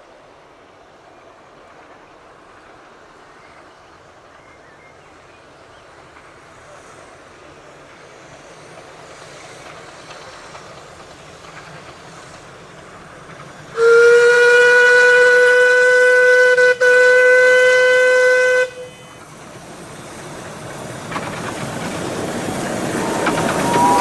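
A 15-inch-gauge steam locomotive's whistle gives one long blast of about five seconds, with a brief break in the middle. Under it, the running noise of the approaching train grows steadily louder.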